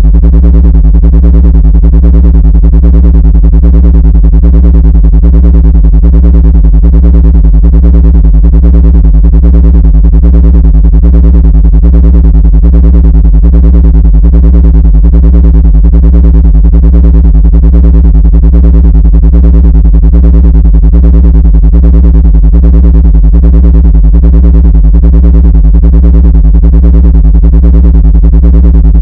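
Loud, unchanging synthesized low drone: a deep hum with a stack of steady overtones above it and a fast, even flutter. It is played as a sound meant to drive ants out of a laptop.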